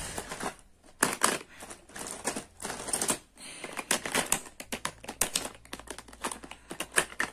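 Small plastic makeup items (compacts, palettes, a foundation bottle) clicking and knocking against each other and the sides of a clear plastic storage box as they are set in and shuffled about. The clicks come in a quick, irregular run.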